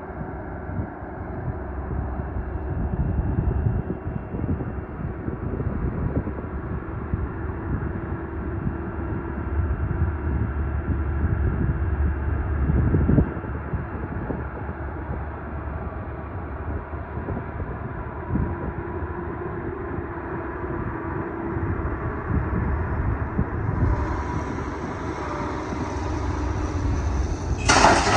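Doosan DX420LCA excavator's diesel engine running and rising and falling under load with a steady hydraulic whine, heard from inside the cab. A sharp knock comes about halfway through, and a loud rattling clatter near the end.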